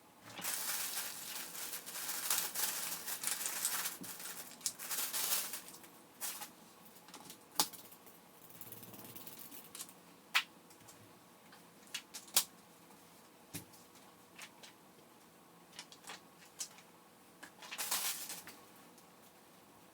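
Rustling and scattered sharp plastic clicks and knocks from a stroller being unpacked and handled, with a longer stretch of rustling in the first few seconds and again near the end.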